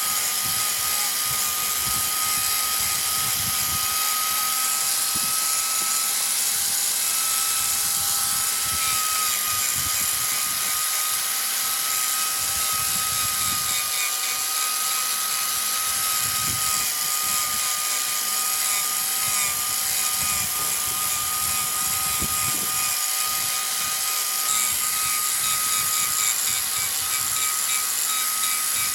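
Wood lathe running with a steady high whine and a continuous hiss.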